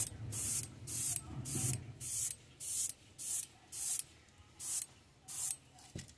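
Airbrush spraying paint in a string of short hissing bursts, about two a second, which stop about five and a half seconds in. A single click comes near the end.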